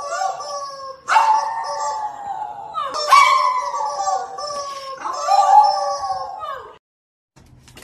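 A small white dog howling: three long howls about two seconds apart, each sliding slightly down in pitch, stopping shortly before the end.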